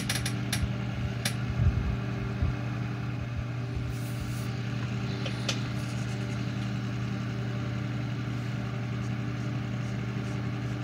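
Steady low hum from a running motor or electrical device, with a few soft knocks and taps in the first couple of seconds and a light click about halfway through as small parts are handled on the bench.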